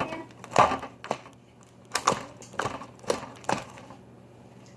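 Glossy slime being poked with fingers, giving a run of sharp, sticky clicks and pops at irregular intervals that die away in the last second.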